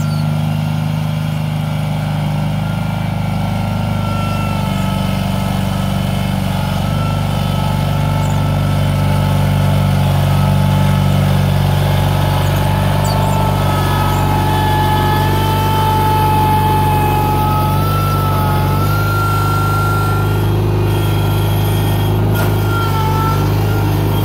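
Cub Cadet garden tractor's engine running steadily under load while it pulls a plow through garden soil, with a fainter whine that wavers in pitch over it.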